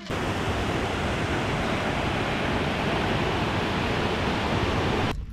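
Stream rushing over boulders in small rapids: a steady, loud rush of water that cuts off abruptly near the end.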